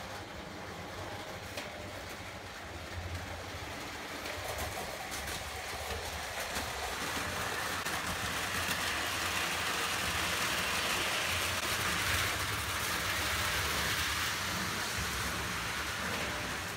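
O gauge Lionel toy electric trains running on three-rail track: a steady rumble and rattle of wheels and motors with a low hum. It grows louder in the middle as a model steam locomotive passes close by.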